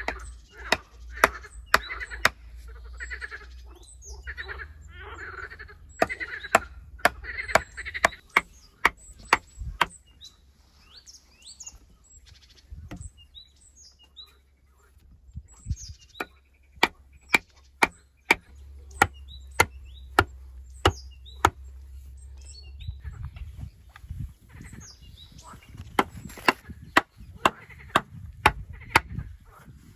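Hatchet knocking wooden stakes into packed earth, in four runs of sharp knocks about two a second with pauses between.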